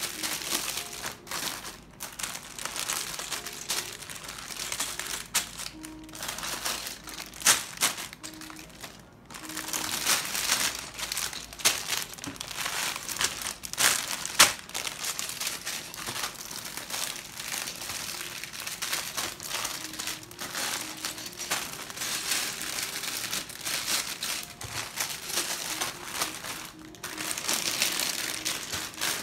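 Clear plastic bags of Lego bricks crinkling and rustling as they are picked up, handled and set down, with a few sharper crackles as bags are squeezed or dropped.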